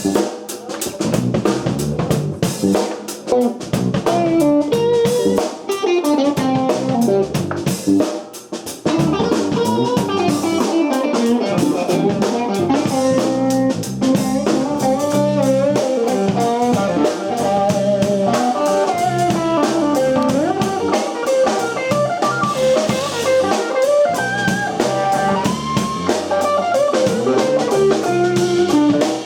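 A band playing at a sound check: a guitar melody with bent notes over a drum kit, with a brief drop in level about eight seconds in.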